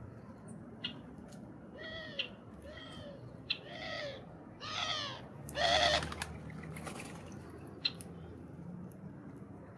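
Birds calling: a run of about five pitched calls, each louder than the last, with the last the longest and loudest. Short high chirps sound on and off throughout.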